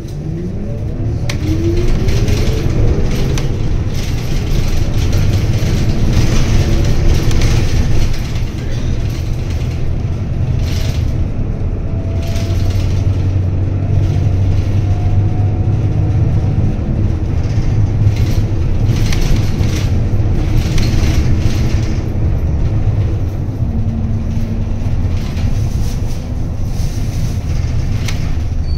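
Toei city bus pulling away from a stop, heard from inside the cabin: the engine and drivetrain rise in pitch as it accelerates over the first few seconds, then settle into a steady low rumble as the bus drives on, with a second rising whine about halfway through.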